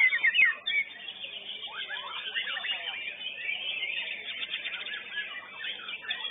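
White-rumped shama (murai batu) singing loud, rapid, sweeping whistled phrases, strongest in the first second, over a dense chatter of many other songbirds singing at once.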